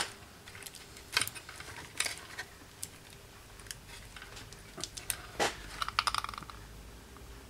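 Scattered small clicks and taps as a cordless drill battery pack is handled: the rechargeable cells, a contact plate and the plastic casing knocking against each other under the fingers. The clicks come about one a second at first and are bunched more closely together later on.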